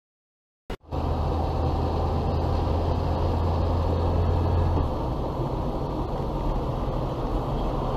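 Silence, a click about three quarters of a second in, then steady engine and road noise inside a car driving at about 55 km/h, picked up by its dash cam. A low hum drops away a little under five seconds in while the road noise goes on.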